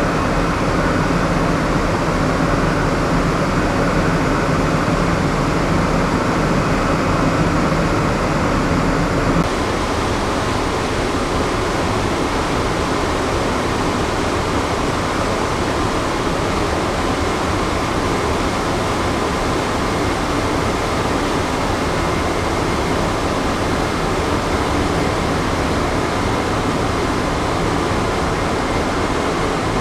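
Steady hum and rush of a moored cargo-passenger ship's onboard machinery and air-conditioning ventilation. About nine seconds in, the low hum and hiss shift to a slightly different steady tone.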